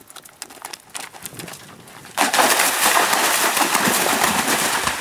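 A horse's hoofbeats cantering, then about two seconds in a sudden loud, continuous splashing as it gallops into and through a cross-country water jump.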